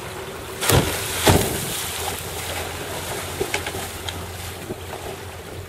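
Two wooden kayaks toppling from upright and slapping flat onto shallow water: two splashes about half a second apart, followed by water sloshing around the hulls.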